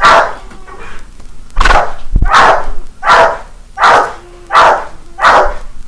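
A dog barks about seven times: one bark, a pause of about a second and a half, then six barks about 0.7 s apart. It is barking because the smoke detector went off.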